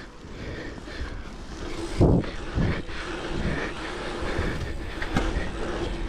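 A mountain bike rolling fast on an asphalt pump track: knobby tyres humming on the tarmac and wind on the microphone. There is a loud low thump about two seconds in and a sharp knock near five seconds.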